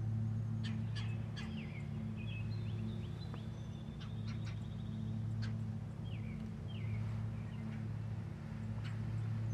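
Wild turkeys a short way off in a flock, with a strutting tom among them, making short sharp clucks and soft calls, among a few small-bird chirps and a thin trill about three to five seconds in, over a steady low hum.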